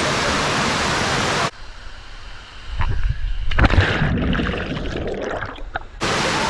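Steady rush of a waterfall that cuts out abruptly about a second and a half in, giving way to a quieter stretch of low rumbling and a few scattered knocks, then returns just as abruptly near the end.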